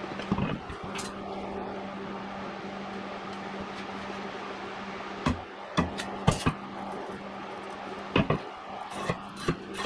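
A steel rule clinking and tapping on a 3/4-inch steel plate as it is laid down and moved while the plate is measured and marked. There are a few sharp knocks, one early and a cluster in the second half, over a steady low hum.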